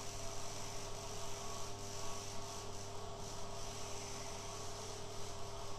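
Soft-serve ice cream machine running with a steady electric hum.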